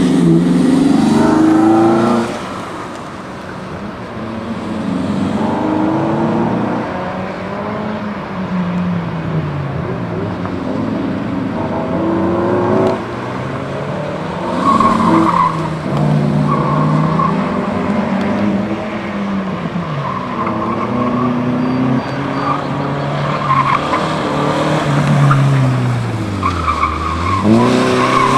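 A car engine rising and falling in pitch as it is driven hard around an autocross cone course, with short bursts of tire squeal in the turns.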